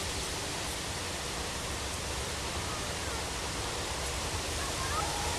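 Steady outdoor hiss of wind through tall marsh grass, with a low fluctuating rumble of wind on the microphone.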